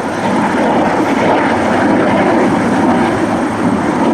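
Steady, loud jet aircraft noise with an even rushing quality and no clear change in pitch.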